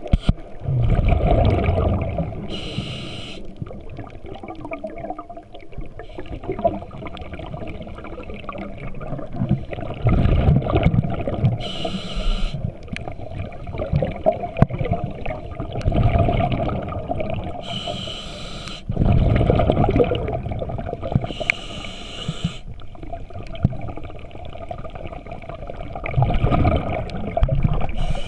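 Scuba diver breathing through a regulator, heard underwater: a few short hissing inhalations, each followed by a longer rumbling, gurgling rush of exhaled bubbles.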